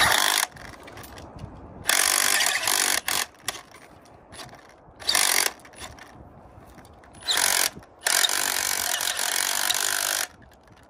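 Rotary hammer drill set to rotation only, run in repeated short bursts to spin a threaded adapter on an old wedge bolt and draw the bolt out of the rock. The longest burst, about two seconds, comes near the end.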